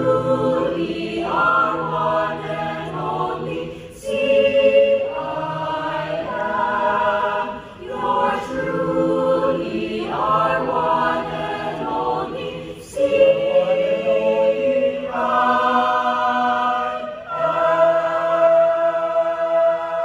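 Mixed choir singing a hymn a cappella in sustained chords, phrase by phrase with short breaks between, closing on a long held chord near the end.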